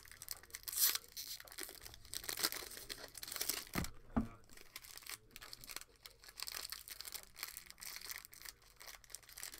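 Trading card pack wrappers tearing and crinkling as packs are opened by hand, with two dull thumps close together about four seconds in.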